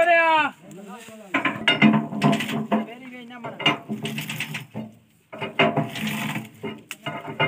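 Rope winch on a loaded trolley being levered round with an iron bar: metal ratchet clicking and clanking as the load rope is wound tight, with a short break about five seconds in.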